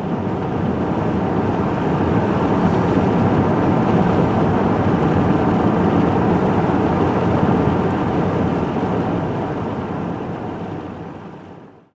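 Wind blowing across the microphone in an open field: a loud, steady rush that swells over the first couple of seconds and fades out near the end.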